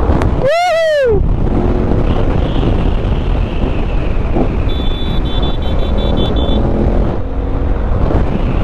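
Motorcycle engine running at speed under wind rush on the helmet microphone, with a whooping shout, a single rising-then-falling call, about half a second in.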